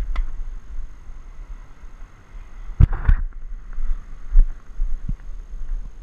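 Tennis rally sounds over a steady low wind rumble on an action camera's microphone. There is a light click at the start, two loud sharp hits of ball and racket or court about a third of a second apart near three seconds in, and then a few duller thumps.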